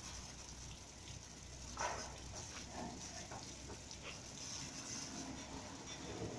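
Risense gantry bus wash machine running over a bus: a steady hiss of spray and rotating brushes over a low hum. A short loud sound comes about two seconds in, followed by a few fainter ones.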